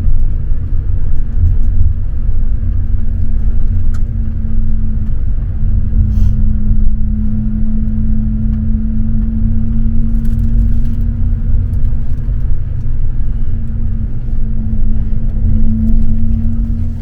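Steady low rumble of a moving motor vehicle with a constant engine hum, cutting off abruptly at the end.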